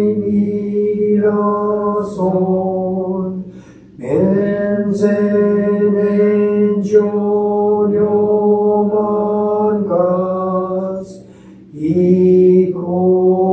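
A man chanting a Shin Buddhist sutra in a steady monotone, holding long syllables on nearly one pitch, with a short pause for breath about four seconds in and another near the end.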